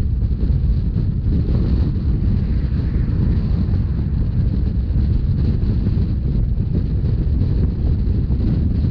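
Steady low rumble of a Rhaetian Railway narrow-gauge passenger train running along the line, with wind buffeting the microphone.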